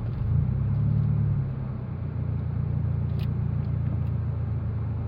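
Toyota 86's flat-four boxer engine through a BE FREE aftermarket exhaust with its silencer fitted, heard from inside the cabin. It eases off in the first second or so and then settles into a steady, low idle rumble. There is a small click about three seconds in.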